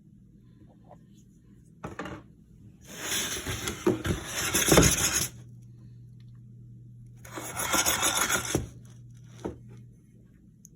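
Kitchen handling sounds while preparing popcorn for the stove: two long spells of rustling and scraping with sharp clicks, about three seconds in and again near eight seconds, over a steady low hum.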